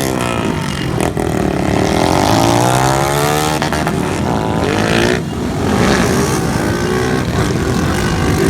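Motorcycle engines revving, their pitch rising and falling again and again.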